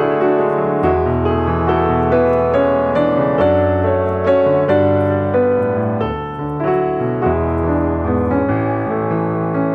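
Background piano music, a steady flow of notes over held bass notes.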